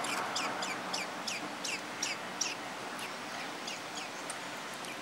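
Thrush nestling begging: a quick series of thin, high calls, each falling in pitch, about three a second, growing fainter and sparser after a couple of seconds.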